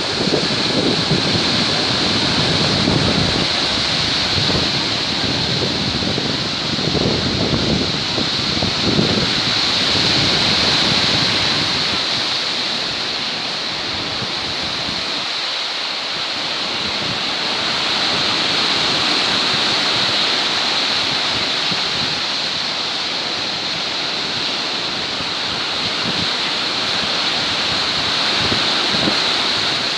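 Rough, storm-driven Black Sea waves breaking and washing on the shore in a continuous hiss that swells and eases slowly. Gusts of wind buffet the microphone with a low rumble over roughly the first ten seconds.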